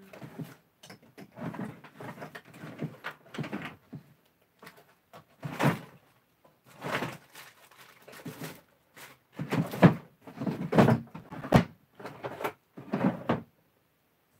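Hand rummaging through craft embellishment storage: irregular knocks, clatters and rustles as containers and drawers are moved and opened, loudest about ten seconds in.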